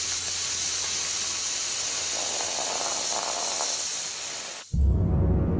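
Water poured from a bottle onto freshly exposed hot lava, hissing steadily as it flashes to steam. The hiss cuts off suddenly near the end and a low, ominous music drone takes over.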